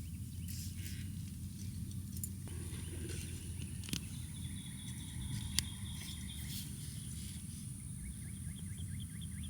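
Outdoor ambience: a steady low rumble with a thin high hiss, and birds chirping repeatedly from about three seconds in, plus a few faint clicks.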